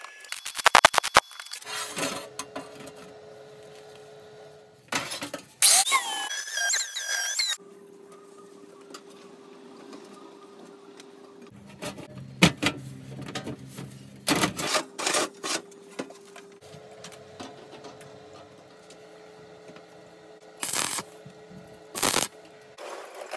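Sheet-steel stove body being tack-welded with a stick (arc) welder: a series of short welding bursts, with a rapid run of clicks near the start and a squealing metal scrape about five seconds in, over a steady hum.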